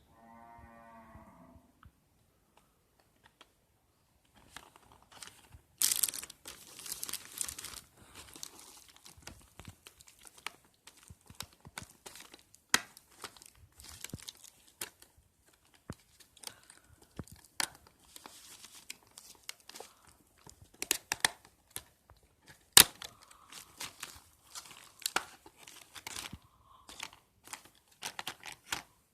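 Packaging of a Mi Bluetooth headset being handled and opened: irregular crinkling, tearing and sharp clicks, starting about four seconds in. It is preceded by a short low pitched tone lasting about a second and a half.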